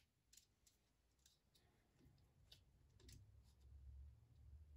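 Near silence with a few faint, scattered clicks from digital calipers being handled and slid while measuring the depth of a drilled hole.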